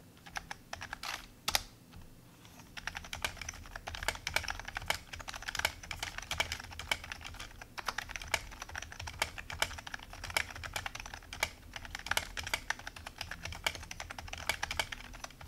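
Typing on a Magegee GK710 rubber-dome keyboard, very quiet key presses: a few separate taps at first, then steady fast typing from about two seconds in.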